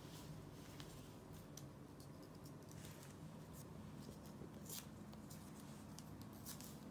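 Faint scattered clicks and scrapes of a paintbrush dabbing in a small plastic cup of wood glue and on paper, over a low steady room hum.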